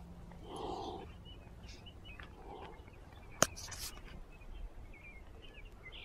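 A cat gives a short call about half a second in, small birds chirp faintly, and there is a single sharp click a little past the middle.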